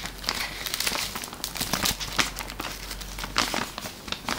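Paper envelope being cut open with a folding pocket knife and handled, the paper crinkling and rustling in a run of irregular crackles.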